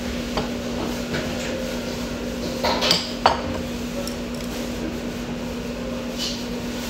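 Eating utensils clinking against dishes: a few light knocks, with a louder cluster of clinks about three seconds in, over a steady low hum.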